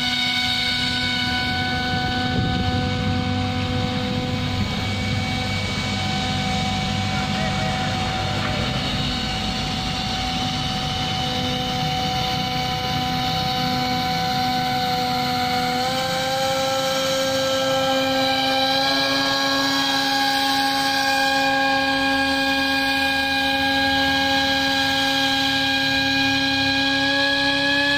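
Small RC boat's electric drive motor whining steadily, stepping up in pitch about halfway through and creeping slightly higher after.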